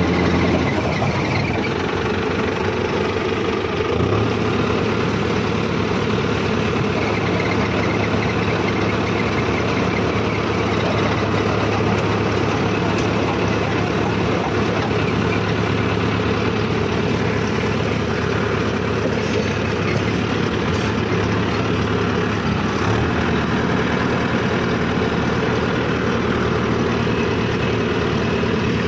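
Mahindra Arjun Novo 605 DI tractor's diesel engine running steadily, heard from the driver's seat. Its note shifts slightly about four seconds in and again later.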